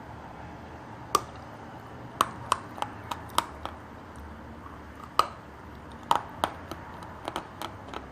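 Crunching of a piece of Khrapovsky chalk: about fifteen sharp, crisp cracks at irregular intervals, starting about a second in.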